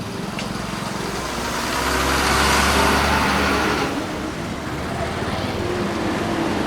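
Busy road traffic: engines running and tyres on the road, with one vehicle passing close and loudest from about two to four seconds in.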